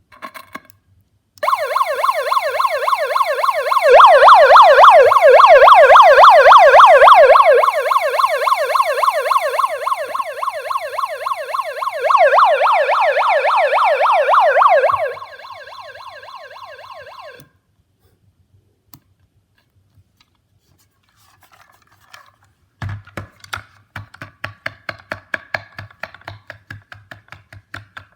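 A handheld megaphone's built-in electronic siren sounds a fast warbling wail, its pitch swinging rapidly up and down. It steps louder, then quieter, then louder again, and cuts off about fifteen seconds in, trailing off faintly. Near the end comes a run of clicks over a low hum.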